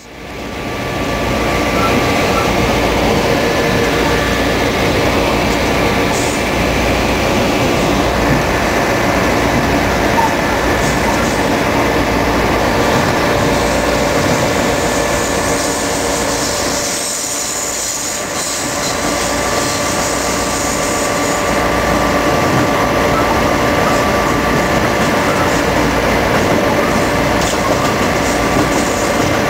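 EMD FL9 diesel locomotive running along the track, heard from inside the cab: the steady sound of its EMD 567 prime mover mixed with wheel-on-rail noise. It fades in over the first second and dips briefly about 17 seconds in.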